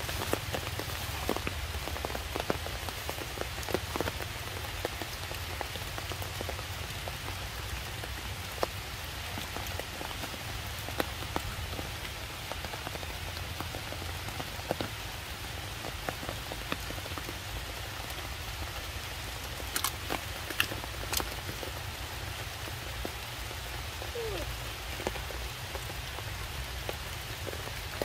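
Steady rain falling on wet stone and forest leaves, with frequent sharp taps of single heavy drops landing close by.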